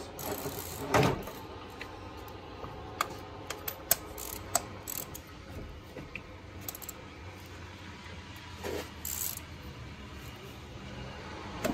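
Irregular light clicks, taps and rattles of spark plug wires and hand tools being handled at the top of a car engine, loudest about a second in.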